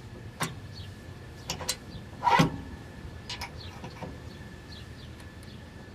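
Compact tractor engine running steadily and low, with scattered short metallic clicks and knocks; the loudest knock comes about two and a half seconds in.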